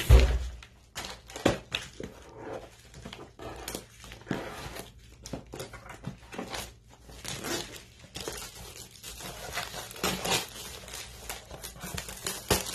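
Brown paper package wrapping being cut with scissors, then crinkling and tearing as it is pulled off a flat box resting on a padded mailer: irregular rustles and crackles, with a low thump right at the start.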